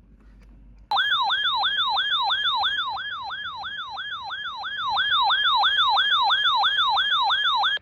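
Electronic siren-style alert tone played over the radio, warbling rapidly up and down about three times a second. It starts abruptly about a second in and cuts off sharply: the attention signal ahead of an Emergency Alert System severe thunderstorm warning.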